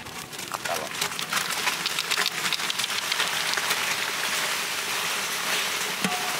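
Boiled rice sliding from a plastic colander into a pot of hot sugar syrup, the syrup sizzling in a dense, rain-like patter that swells about half a second in and holds steady.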